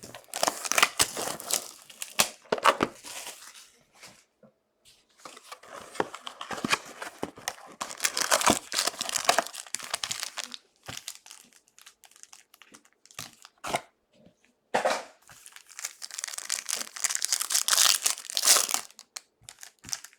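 Crinkling and rustling of trading-card packaging being handled, in several bursts a few seconds long, with sharp crackles between them.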